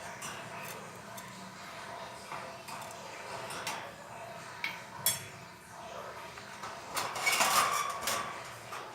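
Budgies pecking at seed in their cage, their beaks clicking and clinking against the feed dish, with a louder flurry of clattering about seven seconds in.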